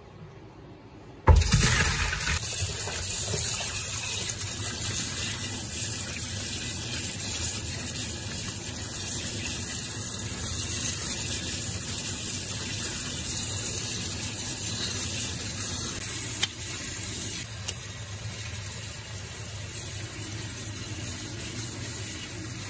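Kitchen tap running onto diced beef in a stainless steel sink as the meat is rinsed by hand. The water comes on suddenly about a second in, then runs steadily.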